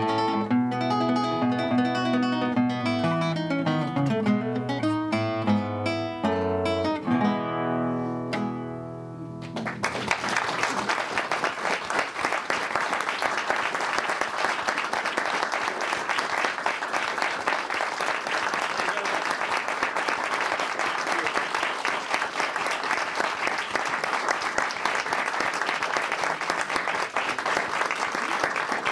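Classical guitar solo closing with a final chord that rings out for a couple of seconds, followed about ten seconds in by sustained audience applause.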